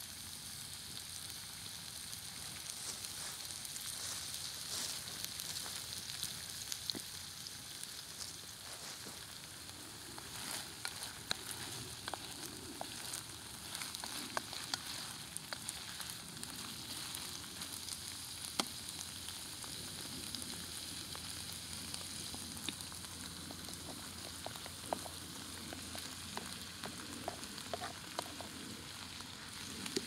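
Diced chicken and onions sizzling in a frying pan over a wood fire. From about a third of the way in, a wooden spoon stirs them, with short clicks and scrapes against the pan.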